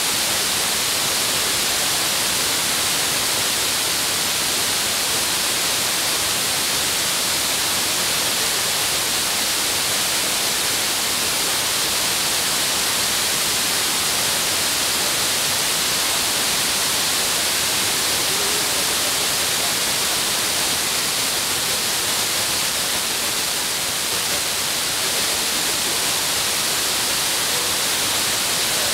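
Steady FM receiver static hiss, strongest in the high end, with no speech from the station coming through. The distant Vietnamese station on 56.4 MHz, received by F2-layer skip, has faded down into the noise.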